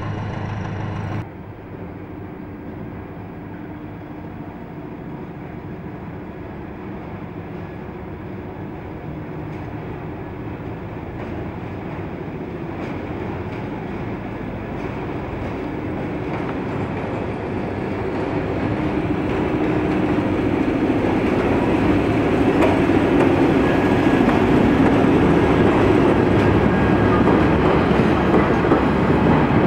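A diesel hum cuts off sharply about a second in. Then an SM42 diesel-electric shunting locomotive runs as it approaches hauling freight wagons, its engine and rolling wheels growing steadily louder.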